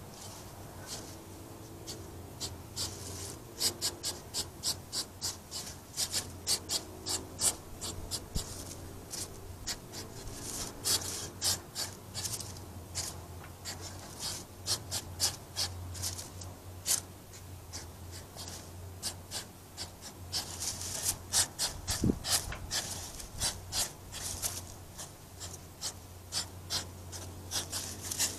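Two male European hedgehogs snorting as they fight: a string of short, sharp huffs, several a second in irregular bouts, over a low steady hum.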